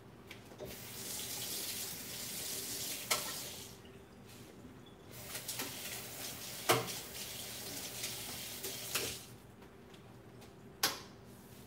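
Kitchen sink tap running in two spells, water splashing into the basin, with a few sharp knocks against the sink; the loudest knock comes about seven seconds in.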